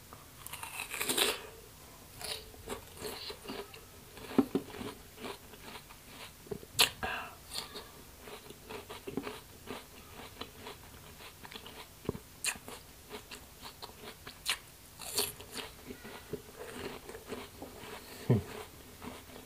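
Close-miked eating of a crisp rose apple (wax apple): a bite into the fruit about a second in, then chewing with sharp crunches and snaps at irregular intervals.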